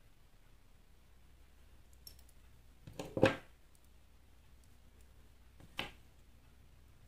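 Small scissors cutting thread and clacking on the tabletop: a cluster of sharp clicks about three seconds in, the loudest a knock, and one more click near six seconds.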